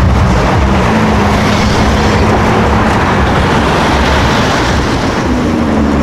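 Close city traffic driving past: car engines and tyre noise, with a minivan going by. Another engine note starts to rise near the end.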